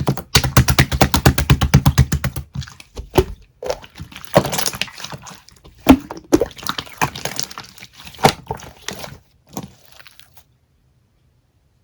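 A fast, even run of sharp clicks, about ten a second, for the first two and a half seconds, then scattered clicks and crackly taps that stop about ten seconds in.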